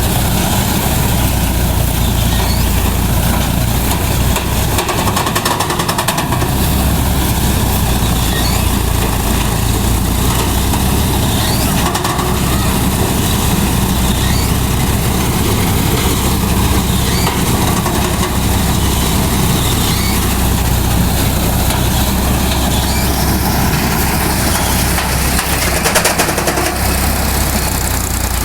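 Tractor-mounted Vikas 325 mini combine harvester running steadily: a low tractor-engine drone under a loud, continuous mechanical din from the harvester's cutting and threshing works.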